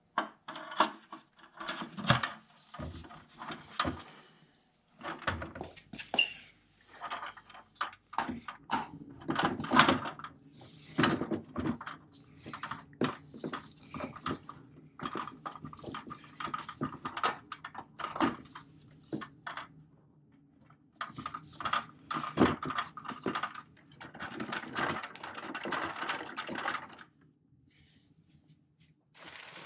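Metal parts of a vintage hand-crank ice cream freezer being fitted together by hand: the can lid and cast-iron gear frame knock, clink and scrape against the can in irregular bursts, with short pauses.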